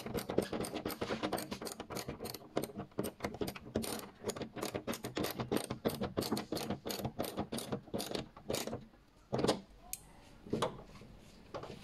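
Ratchet wrench clicking in a quick, even run as a bolt on the bonnet damper's bracket is tightened. The clicking stops about nine seconds in, and a couple of separate knocks from the tool follow.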